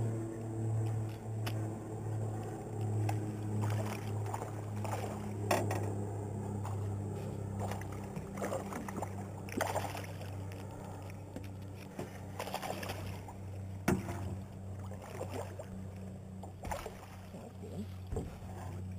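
A hooked smallmouth bass splashing at the surface beside a small boat as it is played in and netted, heard as scattered sharp splashes and knocks over a steady low hum.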